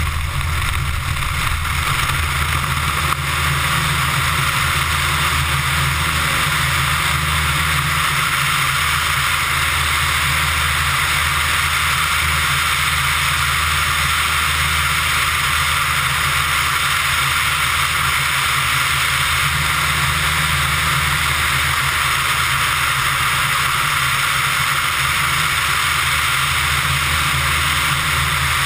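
Pipistrel Virus ultralight's Rotax 912 engine and propeller running hard through the takeoff roll and climb, a steady low drone under a strong rush of airflow over the tail-mounted GoPro.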